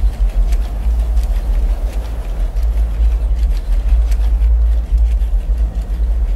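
Deep, steady low rumble with faint scattered ticks over it.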